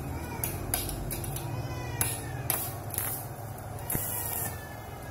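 ZiziWeld ARC 2500 mini inverter stick welder striking and holding an arc on a steel tube: irregular crackling and sputtering, loudest about two to four seconds in, over a low hum.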